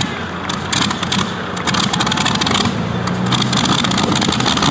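Light modified pulling tractor's engine idling after a pull, a steady low drone under a rough crackling noise.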